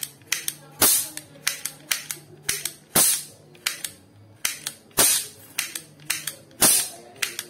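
Metal toy cap revolver firing paper roll caps: four sharp cap bangs about every two seconds, with lighter clicks of the mechanism between them. The owner thinks the hammer strikes too weakly, so the caps don't bang as hard as they could.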